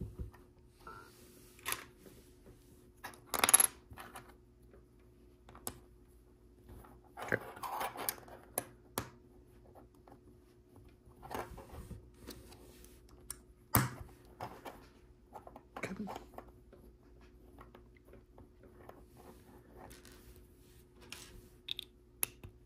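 Plastic LEGO pieces being handled and snapped together: scattered sharp clicks with a short rattling patch of pieces being sorted about seven seconds in.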